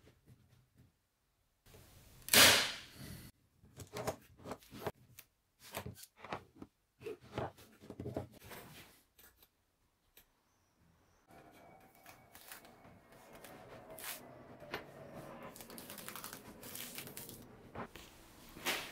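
Scattered taps, clicks and knocks of hands and tools working on a mould and modelling clay at a wooden workbench, with one sharp knock about two seconds in. A faint steady hum comes in past the middle.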